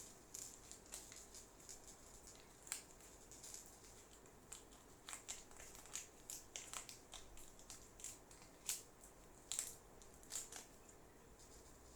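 A package of modelling clay being worked open by hand with a small tool: faint, irregular crinkling and sharp clicks, a few louder snaps about three, nine and ten seconds in.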